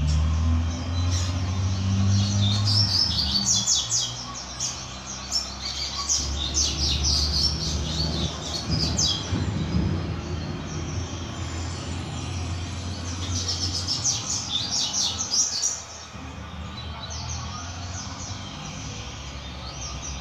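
Caged double-collared seedeater (coleiro) singing in bursts of rapid, high chirping phrases: a young brown-plumaged male whose song is still being refined. A steady low rumble runs underneath and drops off about three-quarters of the way through.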